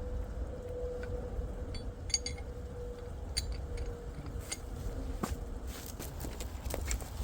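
Footsteps crunching and snapping on frozen ground and leaves on a steep hillside, irregular from about two seconds in, over a low rumble of wind on the microphone and a faint steady hum that fades away about halfway through.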